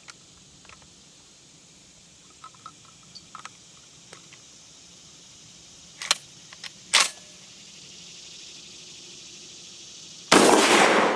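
Titan TTF-12 semi-automatic 12-gauge shotgun being handled after a hang-up: light metal clicks, then two sharp clacks about six and seven seconds in as the action is worked. About ten seconds in comes a single loud shotgun blast whose report dies away slowly. The load is a light buckshot round that is not cycling the action.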